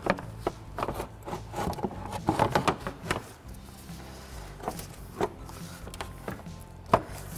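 Radiator fan shroud being worked down into place in the engine bay: a run of irregular knocks, clicks and scrapes as it rubs and bumps against the parts around it, with background music underneath.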